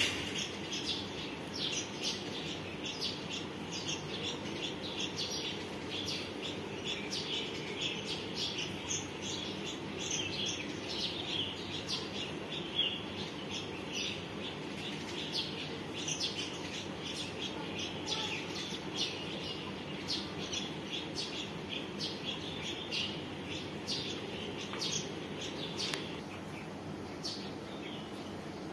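Small birds chirping: many short, high chirps, irregular and overlapping, over a steady low background noise. A brief louder high sound comes right at the start.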